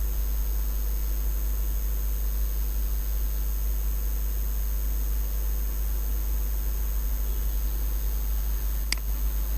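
Steady low electrical hum with hiss and faint high-pitched whine from the recording setup, with no speech; a single sharp click near the end.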